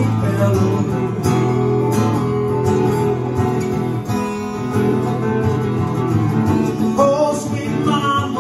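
Two acoustic guitars playing a blues instrumental passage together, chords with picked notes over them; a note slides up about seven seconds in.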